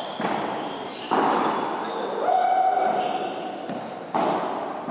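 Padel ball struck by rackets and rebounding off the court walls: three sharp, echoing hits, one just after the start, one about a second in and one near the end, with a held voice-like tone in the middle.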